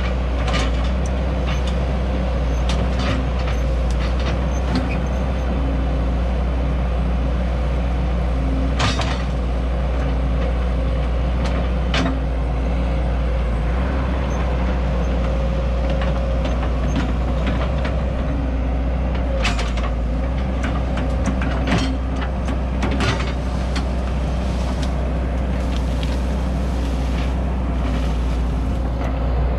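1993 Cat E120B excavator's diesel engine running steadily under work, with a low rumble and a faint steady whine. Several sharp knocks from the machine come a few seconds apart.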